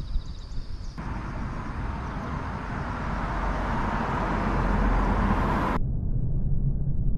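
Road traffic passing on the bridge: a broad rushing noise that comes in about a second in and swells, with a low wind rumble on the microphone. About six seconds in the upper part cuts off suddenly, leaving only the low rumble.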